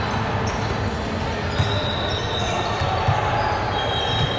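Basketball being dribbled on a gym floor, with repeated low thuds and a sharper knock about three seconds in, over the steady hubbub of the hall. Thin high squeals sound twice in the second half.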